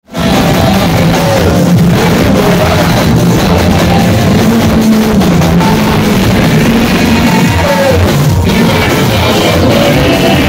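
Loud live worship music through a PA loudspeaker: a man singing into a handheld microphone over a band with heavy bass.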